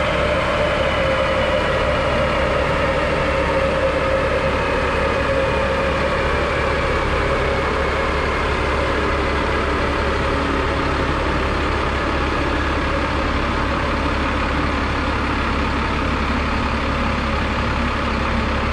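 Truck's rear wheels, driveline and chassis dyno rollers coasting down in neutral, a whine that falls slowly in pitch, over the steady idle of the first-generation Cummins diesel. This is a parasitic-loss coast-down run.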